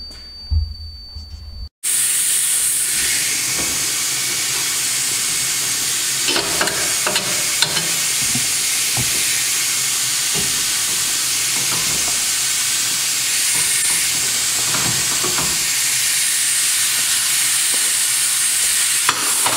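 Air hissing out of a 35x12.5-15 light-truck tire as it deflates, steady and loud from about two seconds in. There are a few light knocks in the middle as the tire is handled.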